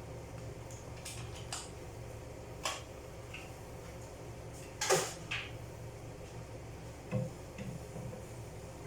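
A few scattered light knocks and clicks of kitchenware being handled, the loudest about five seconds in, over a steady low hum.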